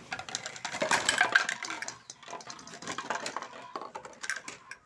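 A plastic carrier bag crinkling as it is tipped out, with plastic toys clattering and knocking onto the floor. The crackle is densest and loudest in the first two seconds, then thins to scattered knocks.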